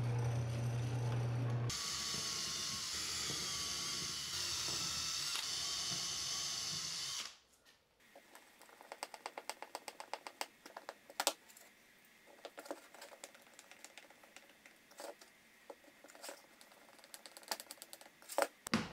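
A drill press runs with a countersink bit cutting into a clear plastic plate: a steady hum, which turns higher-pitched and scraping about two seconds in as the bit bites, then stops about seven seconds in. After that comes a hand screwdriver driving small screws, with runs of quick sharp clicks.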